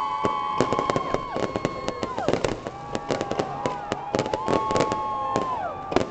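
Fireworks display: rapid crackling bangs throughout, over several overlapping whistling tones that each hold steady for a second or two and then drop in pitch as they die away.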